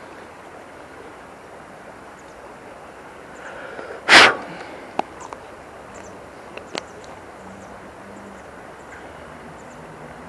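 Steady rush of river current. About four seconds in comes one short, loud burst of noise, followed by a couple of faint clicks.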